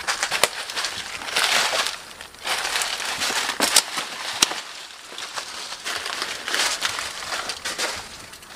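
Footsteps crunching and rustling through dry leaf litter and twigs, in irregular bursts with a few sharp snaps.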